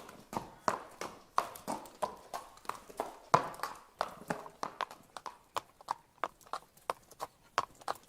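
Horse's hooves clip-clopping at a walk, a steady run of sharp hoof strikes at about three a second.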